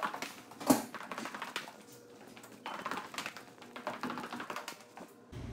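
Footsteps going down a stairwell, an uneven run of light taps and scuffs with one sharper knock about a second in, along with the rustle of the phone brushing against clothing.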